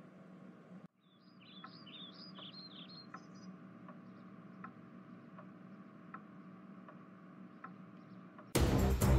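Faint room ambience of an animated scene: a quick run of high bird chirps for a couple of seconds, then a soft tick about every three-quarters of a second. Near the end, loud background music cuts in suddenly.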